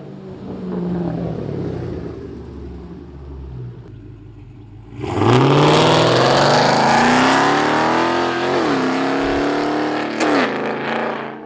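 Chrysler 300's 5.7 Hemi V8 with BBK long-tube headers running low for a few seconds, then about five seconds in opening up under hard acceleration. Its exhaust note climbs steadily, dips briefly at a gear change, climbs again and falls away as the throttle lifts near the end.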